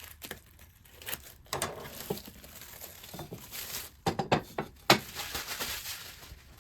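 Plastic crinkling with small clicks and knocks from parts being handled, with a couple of sharper taps about four and five seconds in.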